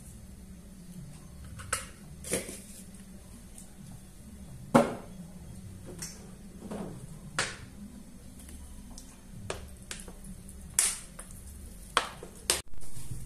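Scattered clicks and knocks of containers and utensils being handled and set down on a kitchen counter, the loudest about five seconds in, over a low steady hum.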